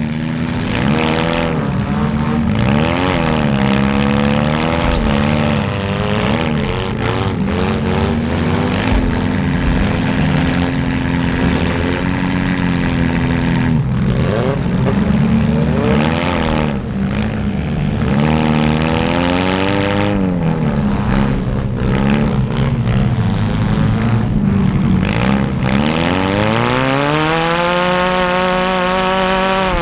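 Engines of several small demolition derby cars revving hard and unevenly, overlapping, pitch repeatedly climbing and falling as the cars accelerate and back off, with one engine rising in a long climbing rev near the end.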